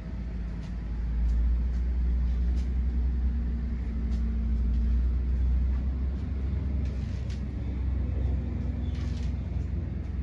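Ford 6.8-litre V10 gasoline engine of a Class A motorhome running, a steady low rumble that grows louder about a second in.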